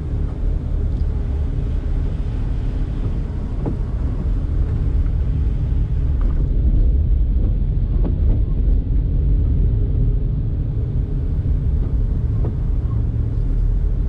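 Daihatsu Mira Tocot kei car with its three-cylinder 660 cc engine, driving: a steady low rumble of engine and road noise with a few light knocks.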